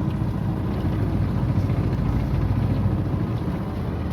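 Small riverboat's engine running steadily at a constant pace, a low hum made of rapid, even firing pulses.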